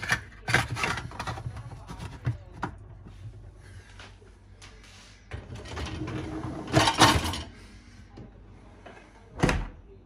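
Plastic and metal clatter of a Beko dishwasher being reassembled: clicks as the filter is twisted back into the sump, a longer rattling scrape about six to seven seconds in as the rack is moved, and a single thump just before the end as the door is shut.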